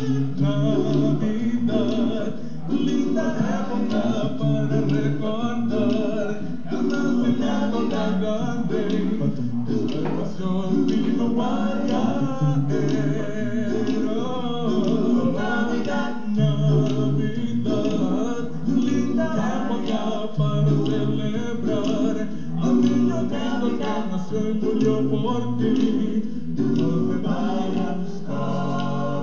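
Male a cappella vocal group singing in harmony, with no instruments: a bass voice holds low notes under the changing upper parts.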